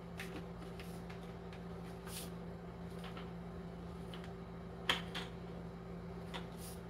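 Small clicks and scrapes of a vacuum cleaner's aluminium extension tube being handled and twisted into its plastic fitting to lock it tight, with one sharper click about five seconds in.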